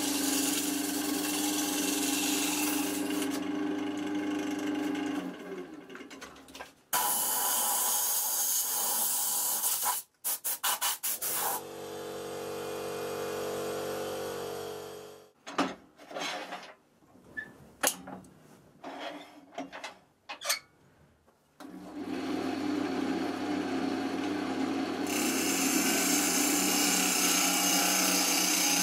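Wood lathe motor running with a steady hum while a gouge cuts the spinning ash blank with a rasping hiss. About halfway through the cutting stops and there are scattered knocks and clicks as the piece is handled, then the lathe runs again and the gouge cuts once more near the end.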